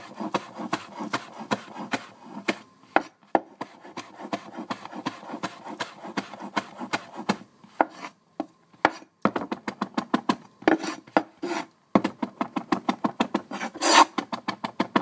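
Cleaver chopping fresh cilantro on a wooden cutting board: rapid knocks of the blade on the board, several a second, with a short pause around the middle and a louder burst near the end.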